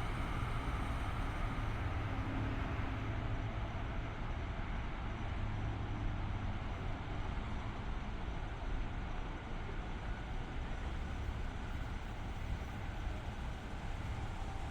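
Steady low rumble of a train running past, with no horn or sharp events.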